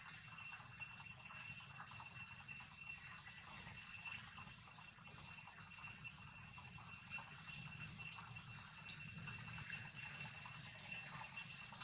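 Faint outdoor ambience: a steady high-pitched whine with soft rustling of leaves as a long-tailed macaque moves through low ground cover.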